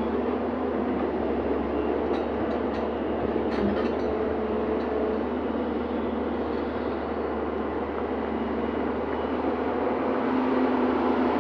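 Excavator's diesel engine running steadily, with a few light clicks between about two and four seconds in.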